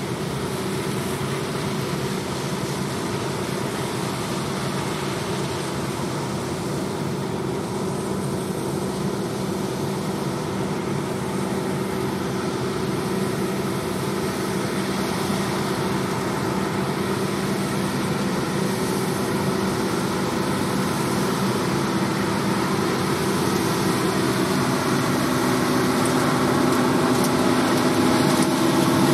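John Deere 8R tractors' diesel engines and the KMC peanut pickers they pull, running steadily under load. The sound grows louder toward the end as one tractor and picker pass close.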